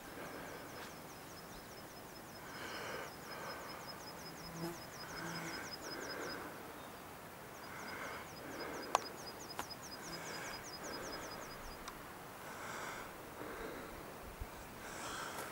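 An insect stridulating: a high, even ticking trill of about five strokes a second, in two long runs that stop about six seconds in and again near twelve seconds. Intermittent rustling hiss beneath, with one sharp click about nine seconds in.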